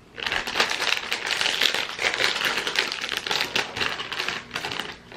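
Shiny plastic snack packet crinkling and crackling as it is handled and opened: a dense, continuous run of small crackles that thins out near the end.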